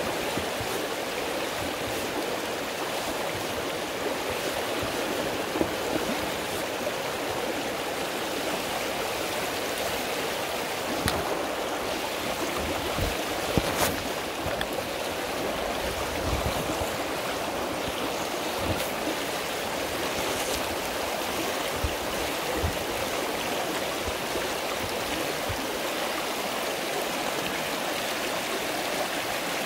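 Shallow, clear river running over a gravel bed, a steady rushing with some trickling. A few soft low thumps come in the middle.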